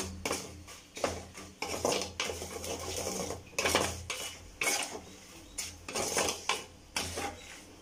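Metal perforated ladle clinking and scraping against a kadai in irregular strokes as spice powders are stirred and fried in oil.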